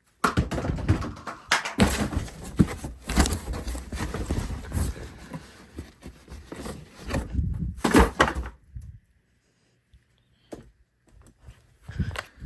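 Plastic vacuum cleaner being handled roughly: a run of knocks, thumps and rattling plastic clatter for about eight seconds, then it stops and only a few light clicks follow.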